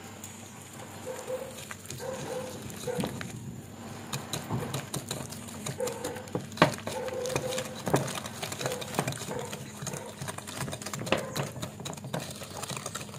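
Wire whisk beating a soft butter-and-sugar mixture in a glass bowl: irregular clinks and taps of the metal wires against the glass, with soft scraping between them.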